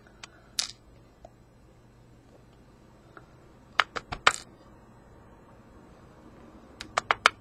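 Sharp little metallic clicks and taps of small lock parts being handled on the bench. There are a couple about half a second in, three around four seconds, and a quick run of four or five near the end.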